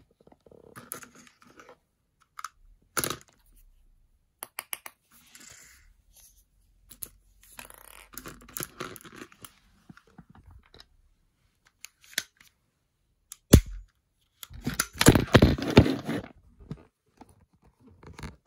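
Hard-plastic toy crossbow being handled and loaded: scattered clicks, scrapes and rattles, with one sharp snap about two-thirds of the way in, followed by a couple of seconds of dense rattling and rubbing.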